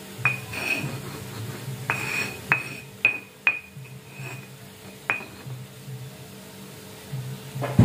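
Metal spatula stirring in a metal wok, clinking against the pan about six times in the first five seconds, each clink with a short ringing tone. A louder knock comes right at the end.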